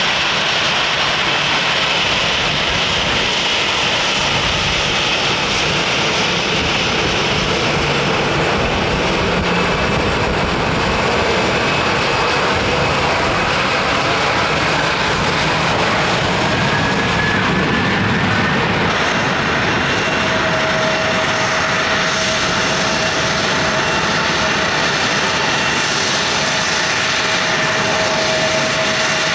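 Airliner engines running loud and steady at close range, with a whining tone joining about two-thirds of the way in.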